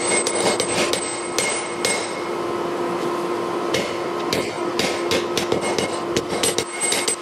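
Hand hammer striking hot steel from a lawnmower blade on an anvil, forging it into a machete: a quick run of blows, a pause of under two seconds about two seconds in, then a faster run of blows, each one with a short ring from the anvil, over a steady hum.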